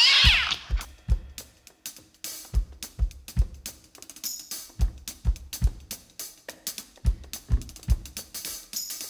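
Drum kit playing a groove on its own: bass drum kicks in groups of three repeating about every two seconds, with snare and hi-hat strokes between. A bright rising sweep fades out in the first half-second.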